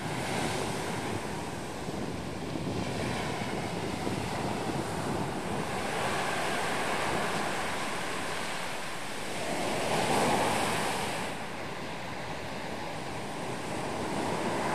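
Sea surf breaking and washing up on a rocky shore: a continuous rush of water that swells to its loudest about ten seconds in as a big wave breaks, then eases. Wind buffets the microphone.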